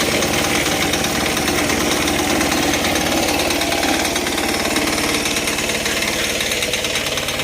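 Loud construction machinery running steadily, with a fast, even rattling pulse that grows clearer about halfway through.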